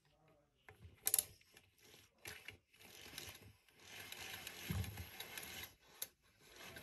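A vintage Hoover canister vacuum's cord rewind reeling in its power cord. After a few handling clicks there is a faint rattling whir for about three seconds, with a low knock partway through.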